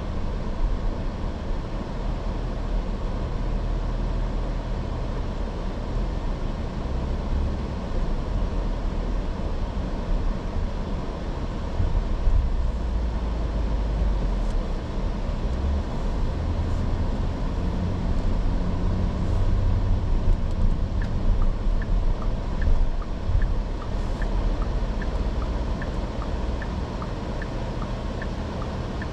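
Porsche Cayenne under way: steady engine and road noise that swells and eases a few times. About two-thirds of the way in, a light regular ticking about twice a second joins in and keeps on.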